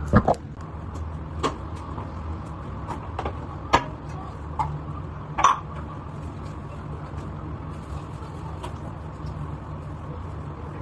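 Sharp clicks and knocks of toiletries and small objects being picked up and set down on a bathroom washbasin and glass shelf during cleaning, about half a dozen over the first six seconds, with a heavy thump right at the start. A steady low hum runs underneath.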